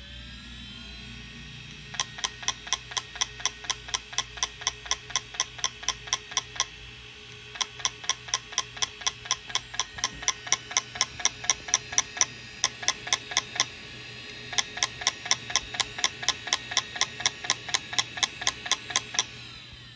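Opened Western Digital Caviar 31600 hard drive spinning with a faint steady whirr, its head actuator clicking sharply and evenly at about four clicks a second in three runs, pausing briefly twice. This is the repeated clicking of a failed drive that cannot read, which the owner puts down to probably corrupted firmware.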